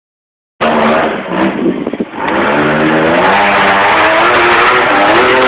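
Off-road buggy's engine revving hard at full throttle as it climbs a steep dirt hill. There is some irregular clatter and knocking, with the engine note dipping, around one and a half to two seconds in, then a sustained high-revving note that rises slowly.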